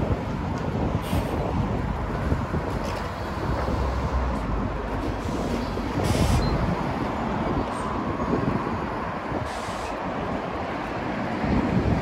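A city bus engine running close by, over steady street traffic noise, with a few brief hisses.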